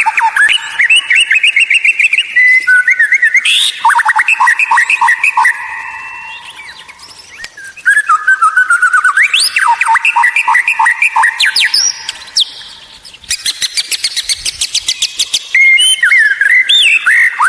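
White-rumped shama (murai batu) singing a loud, varied song of rapid trills, whistles and rising sweeps, with a fast chattering run near the end. The song fades away twice for a second or two. This kind of shama lure song is played to provoke captive shamas into singing.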